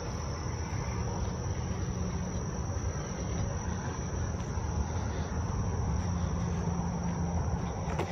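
Insects chirping steadily over a low outdoor rumble.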